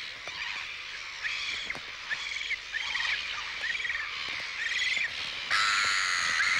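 A breeding colony of black-billed gulls calling, many short repeated calls overlapping, becoming suddenly louder and denser about five and a half seconds in.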